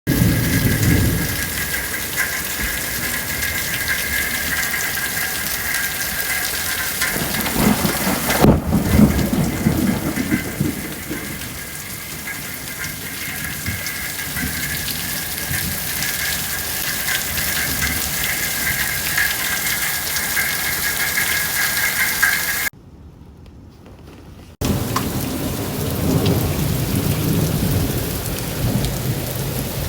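Heavy thunderstorm rain falling steadily, with thunder rumbling at the start, again about eight seconds in, and once more near the end. The sound drops away abruptly for about two seconds a little after twenty seconds in. A steady high-pitched whine runs under the rain until that break.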